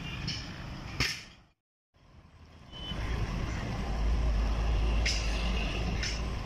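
Heavy truck diesel engine running with a deep, steady rumble that builds up after a brief cut-out. Short hissing bursts come about once a second over it.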